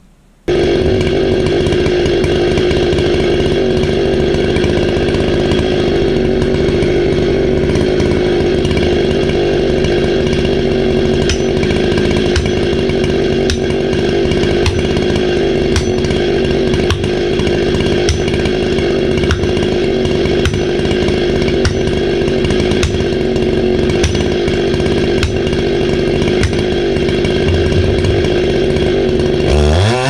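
Chainsaw running at steady full throttle, cutting into the base of a large oak trunk. It starts abruptly about half a second in and holds one even pitch throughout.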